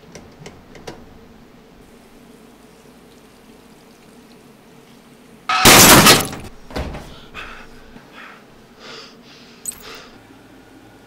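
Bathroom wall mirror shattering in one sudden, very loud crash about five and a half seconds in, followed by smaller scattered knocks and rattles of broken glass over the next few seconds.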